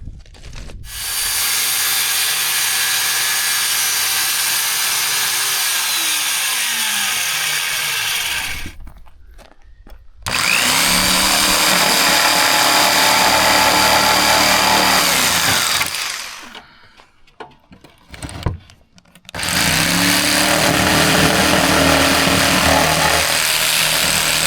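Power tool cutting holes through a plywood floor panel, in three long runs of several seconds each with short pauses between them, the motor pitch sliding as it spins up and winds down.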